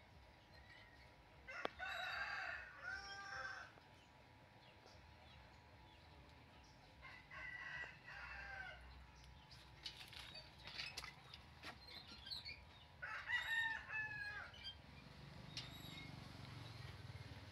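A rooster crowing three times, several seconds apart, with a few light knocks and clicks in between.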